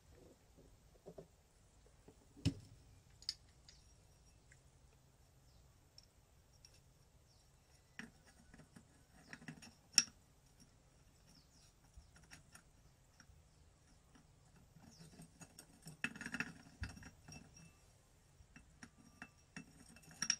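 Scattered light metallic clinks and clicks as a clutch pressure plate is handled and seated onto a motorcycle clutch pack, the sharpest click about ten seconds in and a cluster of small rattles around sixteen seconds.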